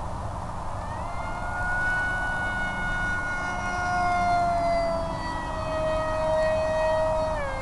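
Electric motor and propeller of an FPV flying wing whining as it flies off after launch: the pitch rises about a second in, then sags slowly, with a quick dip and recovery near the end. A steady rush of wind runs underneath.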